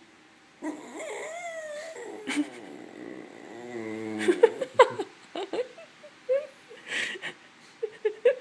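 Shetland sheepdog vocalizing: a long wavering whine, a lower drawn-out groan around the middle, then a string of short whimpers and yips.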